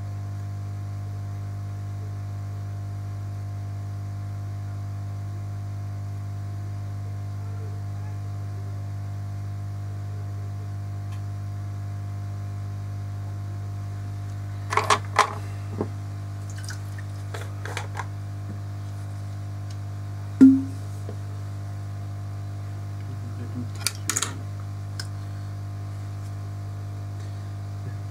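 Steady low electrical hum throughout, with a few scattered sharp clicks and taps about halfway through and again near the end, and one short low blip about twenty seconds in.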